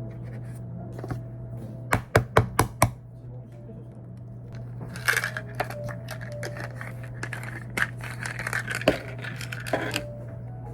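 A quick run of five sharp clicks or taps about two seconds in, then irregular crinkling, scraping and tapping of objects being handled for several seconds, over a steady low hum.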